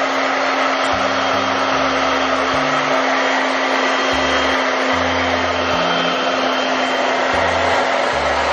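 Handheld hair dryer blowing steadily at a wet cat's fur, a constant rush of air over a steady motor hum.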